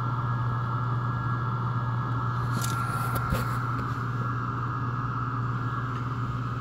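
The American Flyer locomotive's exposed electric motor and gear train running steadily on a test stand: a constant low hum with a higher whine over it, and a few light clicks near the middle.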